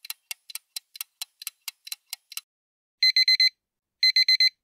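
Countdown-timer sound effect: a clock ticking about four times a second, stopping about two and a half seconds in, then a digital alarm-clock beeping in two short bursts of rapid high beeps a second apart, signalling that the time is up.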